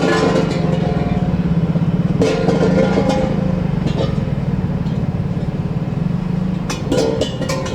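An engine running steadily with a pulsing low hum, with a few sharp knocks and clanks near the end.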